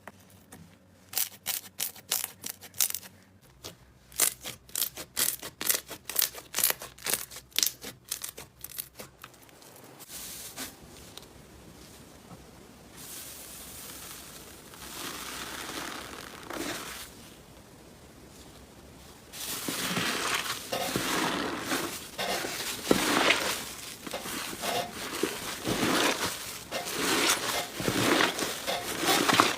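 Slime being pressed and squeezed by hand. A rapid run of sharp crackling pops fills the first several seconds, softer rustling follows, and louder, denser crackling and squishing comes back about twenty seconds in.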